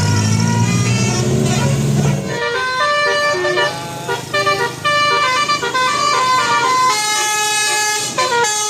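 Telolet basuri musical horn on a truck or bus, first sounding a low drone for about two seconds, then playing a tune of short separate notes that step up and down in pitch several times a second.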